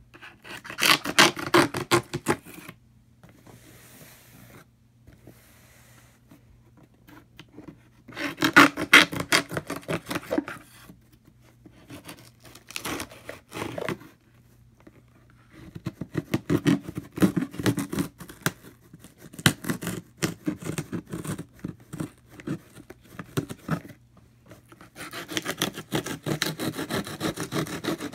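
Hands scraping and rubbing over a corrugated cardboard shipping box in several stretches of rapid scratching with short pauses between, ending with a blade cutting along the packing tape.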